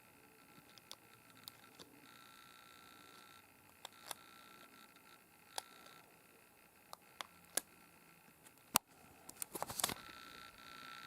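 Scattered light clicks and taps, with a quick run of them near the end, over a faint steady high-pitched whine.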